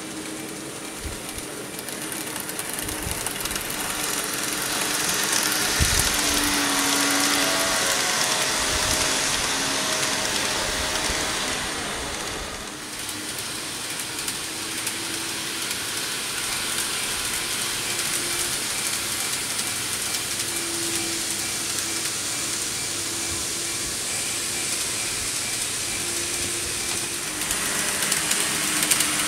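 KATO N-gauge 115 series model train running on the layout track: a steady whirring rattle of the motor and wheels on the rails. It grows louder over the first few seconds and eases off after about twelve seconds, with a few faint clicks.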